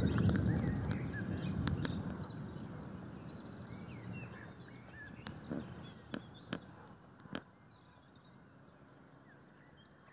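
Low rumble of distant thunder dying away over the first several seconds, with small birds chirping and a few sharp clicks around the middle.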